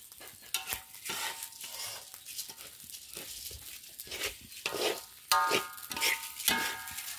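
Metal spatula stirring and scraping dry rice grains around a metal wok, the grains rustling and sliding with each stroke. A few louder scrapes carry a brief ringing tone about five seconds in.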